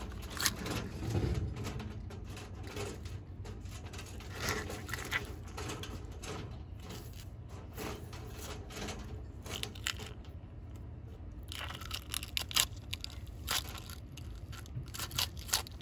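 Monitor lizard biting into a beef-filled eggshell: irregular crackling and crunching of the shell in its jaws, in scattered short clicks.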